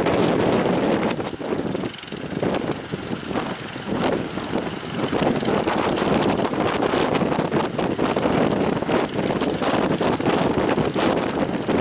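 Strong wind gusting across the microphone over the steady rush of waves. It eases for a couple of seconds near the start, then comes back as loud as before.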